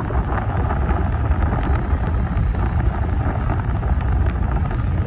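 Wind buffeting the phone's microphone over a steady low road rumble, as from riding in a moving vehicle.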